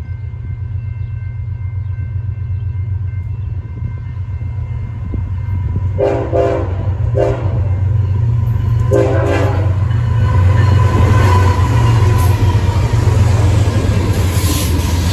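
BNSF freight train led by GE Dash 9 diesel locomotives approaching and passing: a steady low engine rumble grows louder as it nears. The locomotive horn sounds three blasts about six, seven and nine seconds in, long, short, long, and wheel noise joins as the locomotives go by near the end.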